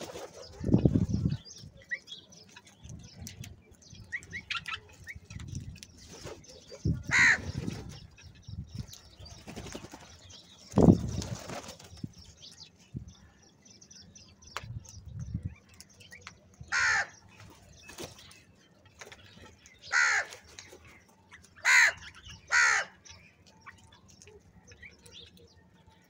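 A flock of house crows feeding: wings flap as birds flutter in, loudest about a second in and near the middle, and several harsh caws ring out, one a quarter of the way through and a cluster of four in the second half.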